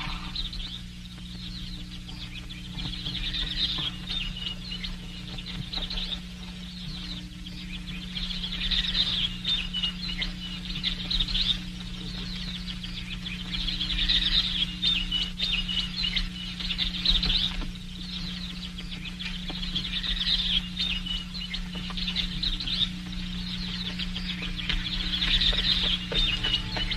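High-pitched, fast chirping, like birds or insects, that swells up about every five to six seconds over a steady low hum.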